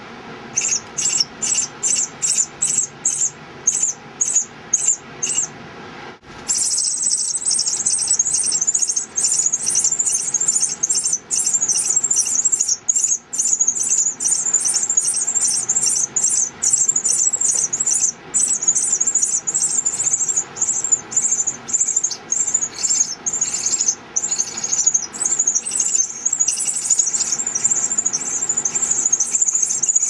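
Pearly-eyed thrasher nestlings begging for food: high, squealing calls, at first separate at two or three a second, then from about six seconds in an almost unbroken run of rapid calls.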